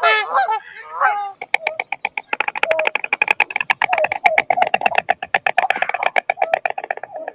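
Stork clattering its bill: a long, fast rattle of wooden-sounding clicks, several a second, starting about a second and a half in. It is preceded by a few short wavering calls.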